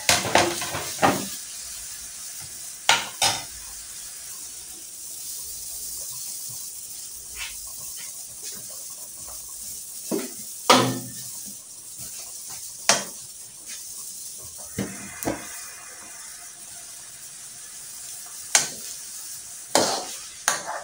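Broth of fish soup simmering in a steel wok on the stove, a steady hiss, with sharp clinks of a metal ladle against the wok scattered through it, the loudest about halfway.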